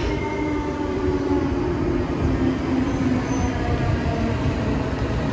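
Shinkansen train in the white, copper and blue E7-series livery pulling in along the platform and slowing. Its motor whine falls slowly in pitch over a steady rumble of wheels on rail.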